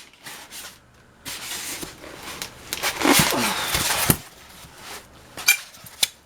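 Cardboard and packaging rustling and scraping as items are pulled out of a box, in irregular stretches with a few sharp clicks, loudest about three seconds in.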